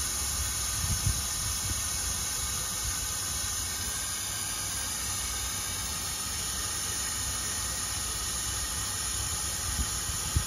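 Air hissing steadily out of a car tire through an air chuck held on the valve stem. The tire has been over-inflated and is being let down so its TPMS sensor is read during the relearn procedure.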